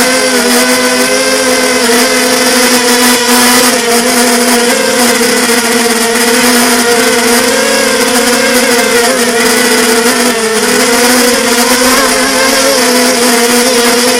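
Robocat quadcopter's electric motors and propellers whining loudly and steadily, the pitch wavering up and down, with a brief dip about ten seconds in.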